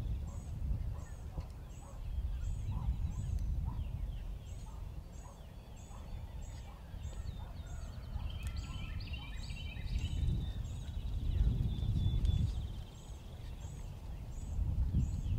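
Rio Grande wild turkey tom gobbling. Another bird's short high chirps repeat about twice a second throughout, over a low rumble of wind.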